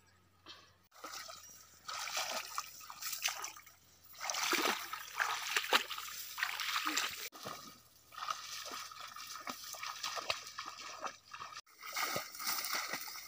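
Feet wading and splashing through shallow marsh water among reeds, a dense irregular sloshing and crackling that starts about a second in.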